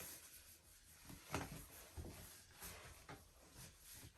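Near silence with faint rubbing and a few soft taps: fingers working Vaseline onto the hairline and behind the ear.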